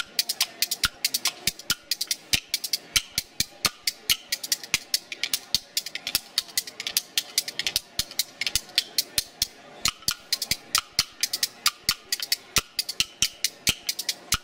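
Background music driven by fast, sharp percussive clicks, several a second, in a steady rhythm.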